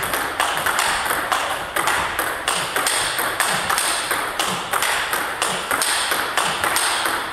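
Table tennis rally of drives and blocks: the celluloid-type ball clicking off the rackets' rubbers and bouncing on the table in a quick, even rhythm of sharp pings.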